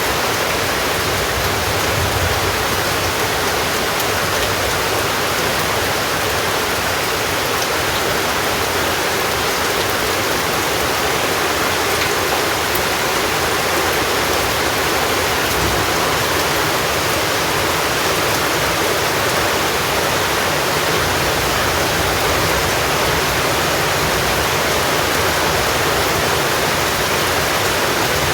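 Steady rain falling, an even rushing hiss that holds at one level throughout.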